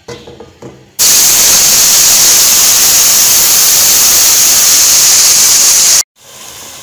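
Wet ground onion, tomato and ginger-garlic paste mixed with spices hitting hot oil in a steel pot: a very loud, violent sizzle that starts suddenly about a second in. It cuts off abruptly about six seconds in and gives way to a much quieter steady sizzle.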